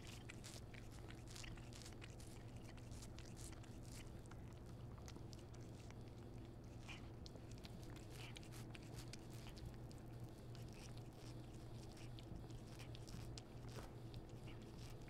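Maine Coon cat chewing and biting kernels off a corn cob: many faint, irregular crunching clicks, over a steady low hum.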